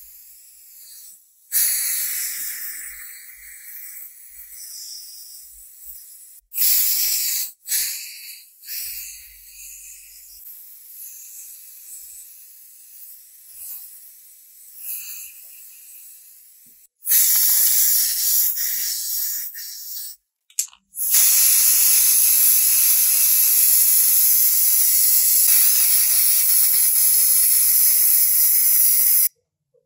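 Spray paint hissing out onto a model car body shell in several bursts of a few seconds each, then one long spray of about eight seconds near the end.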